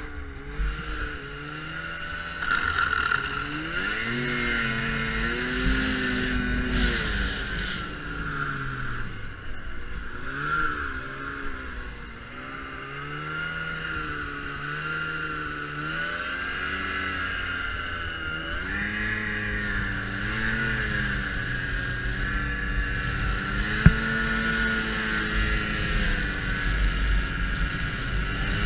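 Ski-Doo Expedition Sport 550F snowmobile's fan-cooled two-stroke twin running under way, its pitch rising and falling again and again as the throttle is opened and eased. A steady high whine runs with it, and there is one sharp click near the end.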